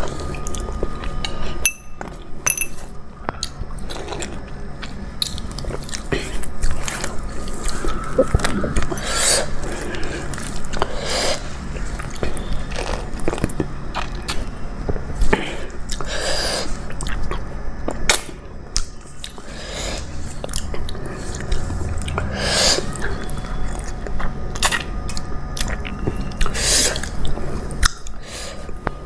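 A person eating close to the microphone: chewing and wet mouth sounds, with a bite or smack every second or two.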